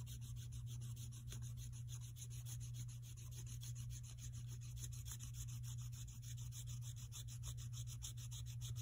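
Water pen's brush tip scrubbing back and forth on water-reveal paper in quick, even strokes, several a second, over a steady low hum.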